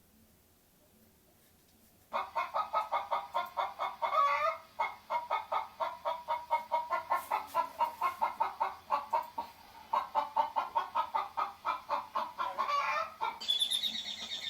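Hens clucking in quick, repeated notes, about six a second, starting about two seconds in and pausing briefly twice. Near the end a higher, different sound takes over.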